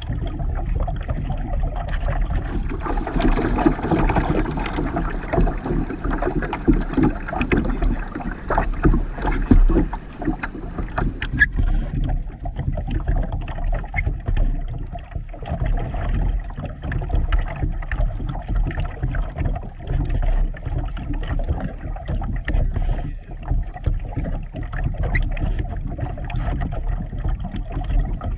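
Fast, muddy creek water rushing and lapping against a plastic kayak's hull as it drifts downstream, over a steady low rumble. From about three to eleven seconds in, a brighter, hissier rush of rippling water.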